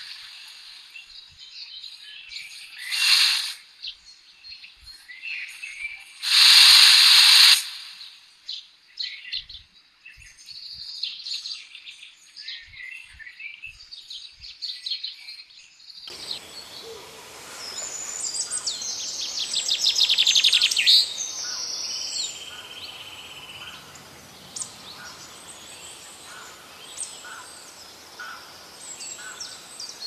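Birds chirping, with a few loud rushing bursts of noise in the first half. About halfway the sound changes suddenly to a steady hiss with scattered chirps and a brief fast rattle.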